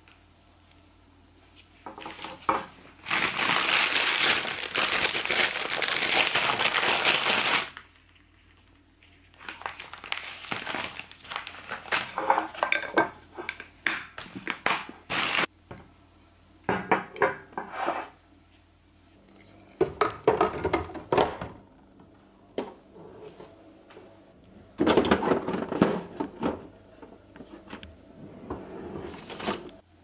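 Plastic food wrapping crinkling and rustling as groceries are unpacked by hand, with glass jars and a glass food container clinking and knocking on a countertop. There is a long stretch of crinkling about three seconds in, then scattered knocks and rustles, and another loud burst of rustling about five seconds before the end.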